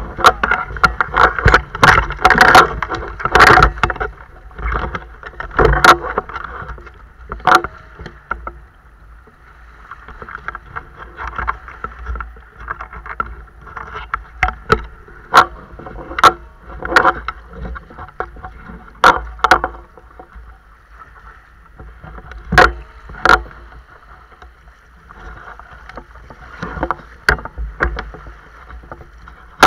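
Shallow sea water splashing and sloshing around a wader's legs and gear, with irregular sharp knocks and clicks of equipment, several of them loud.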